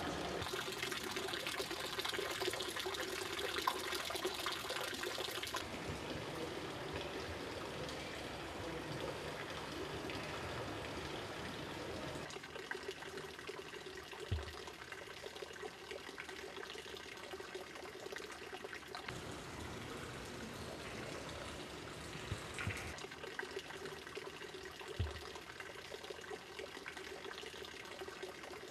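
Steady trickling and splashing of running water, dropping in level about 6 and 12 seconds in, with a few faint knocks.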